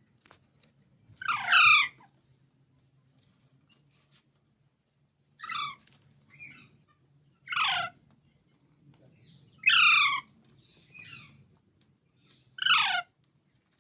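Baby parrot giving five harsh, screechy calls a few seconds apart, each falling in pitch, with a few fainter calls between them.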